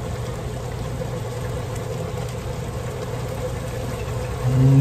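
A steady low hum runs throughout, with faint liquid sounds as tomato juice is drained from a can of diced tomatoes.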